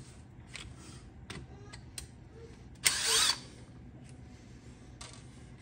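A cordless drill/driver runs once, for about half a second about three seconds in, its motor whine rising in pitch as it backs a small screw out of a plastic RC truck chassis. Faint clicks of handling come before it.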